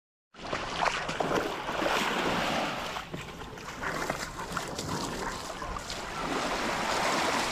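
Sea waves washing and lapping along a rocky shore, with wind buffeting the microphone; the sound cuts in suddenly just after the start.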